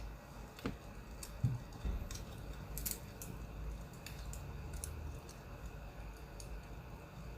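Crackling wood fire: sharp, irregular pops and snaps over a low, steady rumble.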